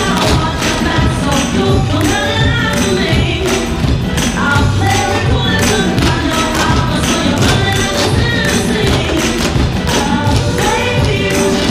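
Recorded pop song with singing, over the rhythmic clatter of many tap shoes striking the stage floor together in time with the beat.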